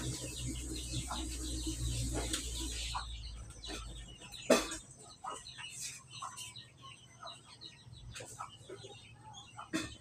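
Caged Asian pied starlings calling: scattered short chirps and clicks, with one louder sharp sound about four and a half seconds in. A low steady hum in the background stops after about three seconds.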